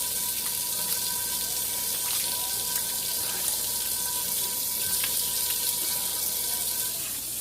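Water running steadily from a tap into a sink while hands are washed with soap. A faint steady whistle rides on the water and stops near the end.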